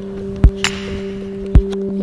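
Background ambient music: a steady sustained drone with a soft chime-like strike. Two sharp low thumps come about a second apart and are the loudest sounds.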